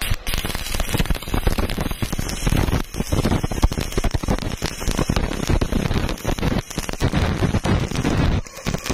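Stick welding arc from a flux-coated electrode welding a thin 1.2 mm steel pipe to a steel plate: the arc strikes suddenly and then crackles and sizzles steadily, with a brief break in the crackle near the end.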